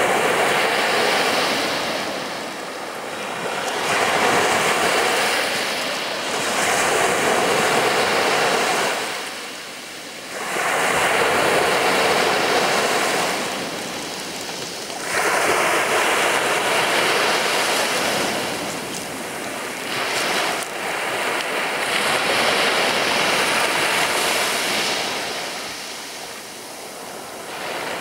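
Sea waves breaking on a beach, one after another, each wash swelling up and fading away over a few seconds.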